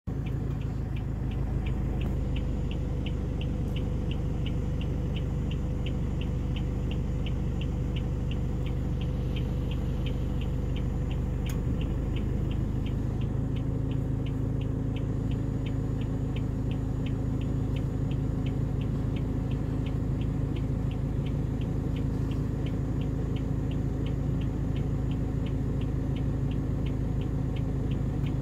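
Steady low hum of an idling vehicle engine, its tone shifting slightly about halfway through, with a fast, regular high ticking at several ticks a second throughout.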